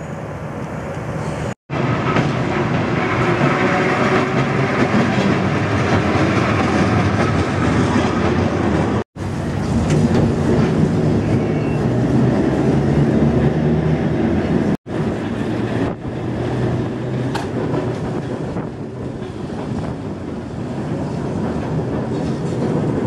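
A New Orleans St. Charles Avenue streetcar, a 900-series car, running on its rails, heard from aboard as a steady rolling noise with a low hum. The sound cuts out sharply three times for a split second.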